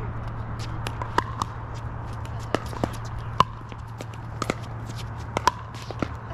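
Pickleball rally: paddles popping against the hollow plastic ball in a quick exchange of sharp hits, the loudest about three and a half seconds in, with fainter pops from other games, over a steady low hum.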